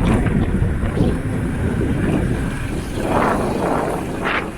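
A vehicle's steady low rumble heard from on board while driving along the road, with two brief rushing swells about three seconds in and near the end.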